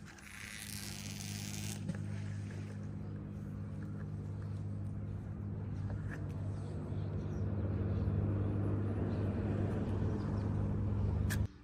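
A machine's steady low hum, with a brief hissing whoosh about half a second in; the hum cuts off abruptly near the end.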